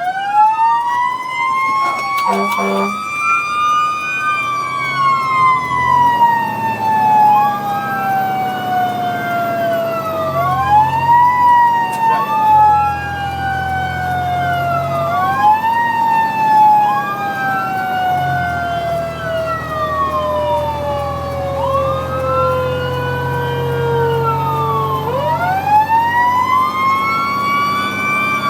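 Fire engine's Federal Q mechanical siren winding up and slowly coasting down, wound up again several times, with an electronic siren wailing alongside it about every four and a half seconds. A short horn blast comes about two seconds in, and the truck's engine runs underneath.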